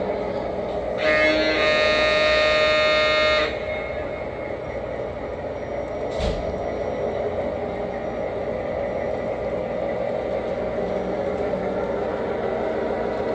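Sound system of an O-scale model of New York Central diesel switcher 622 running steadily, with one loud horn blast of about two and a half seconds starting about a second in and a short click a few seconds later.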